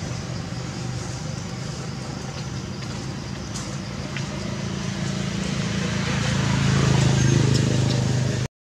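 Low, steady engine hum of a motor vehicle over outdoor background noise, growing louder about seven seconds in and then easing off.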